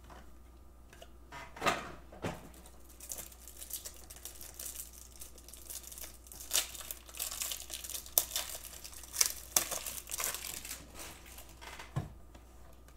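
Plastic wrapper of a Panini basketball card pack being torn open and crinkled by hand: irregular crackling with a few sharper snaps.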